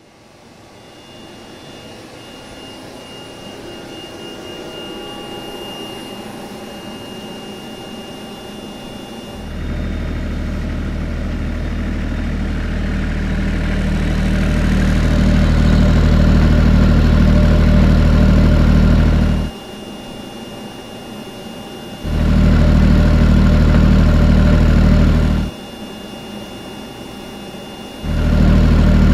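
Bladon micro turbine genset running with a steady high whine. About nine seconds in, a 16 kVA soundproofed diesel generator's much louder low rumble with an even pulse takes over. Near the end the diesel drops out twice for a few seconds, leaving the quieter turbine whine, as the two are compared side by side.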